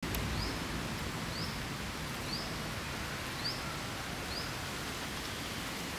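Steady outdoor background hiss, with a short, high, upward chirp from a small animal repeating about once a second.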